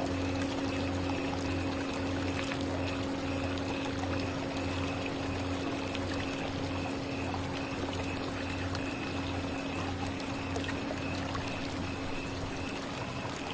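Tibetan singing bowl from a C# chakra set ringing on in one long, slowly fading tone, with a slow pulsing wobble in its low hum.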